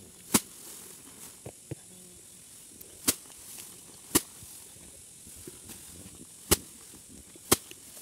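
Rice being threshed by hand: bundles of harvested rice stalks whacked down onto a woven mat to knock the grain loose. There are five sharp strikes at uneven intervals, a couple of fainter knocks between the first two, and a faint steady hiss underneath.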